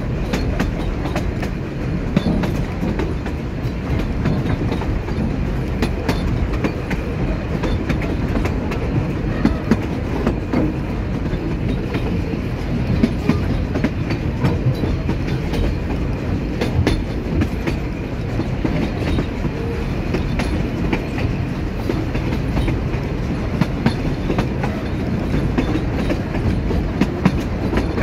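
Puffing Billy narrow-gauge train running along the track, heard from an open-sided carriage: a steady rumble of wheels on rail with many sharp clicks and clacks throughout.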